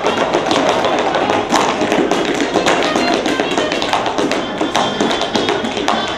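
Tap shoes striking wooden dance boards in quick, rhythmic taps from several dancers, over background music.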